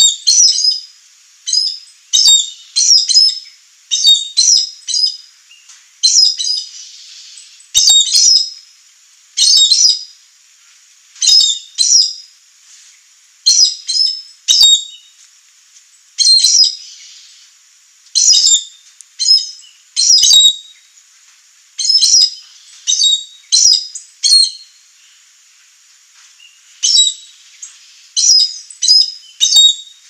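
Chestnut-eared aracari calling: short, sharp, high-pitched notes, often two to four in quick succession, repeated every second or two.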